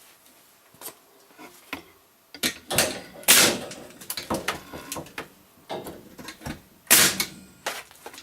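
Irregular knocks, clatters and scrapes of things being handled, with the loudest bangs about three seconds in and again near seven seconds.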